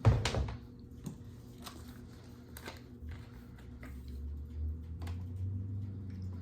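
A sharp knock at the start, then a few light clicks and taps of small objects being handled, over a low hum that grows louder in the second half.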